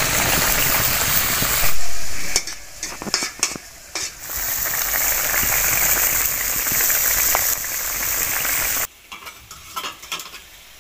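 Fish curry boiling hard in a metal wok over a wood fire, a steady sizzling hiss that cuts off and returns once. Near the end it drops to quieter, irregular clicks of a metal spoon stirring against the wok.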